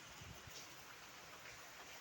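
Light rain falling, a faint steady hiss with scattered drop ticks.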